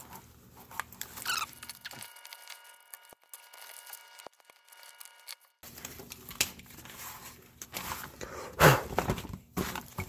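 A plastic wiring-harness connector being handled: scattered light clicks and plastic rubbing, with a short squeak about a second in and a louder knock near the end.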